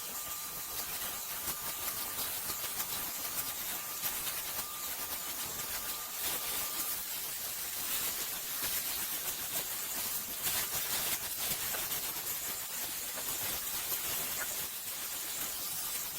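One-step hair dryer brush running, a steady rush of blown air. A faint high whine sits over it for the first several seconds.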